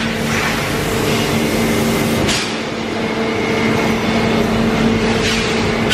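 Heavy industrial machinery running with a steady electric hum and whir, most likely the 225 kW main drive motor and gearbox of a Mannesmann chain drawing bench. Two short rushes of hiss come about two and five seconds in.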